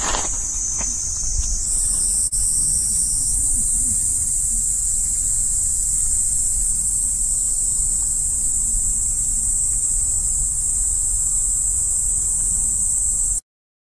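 A loud, steady, high-pitched chorus of insects, with a low rumble underneath. It cuts off abruptly near the end.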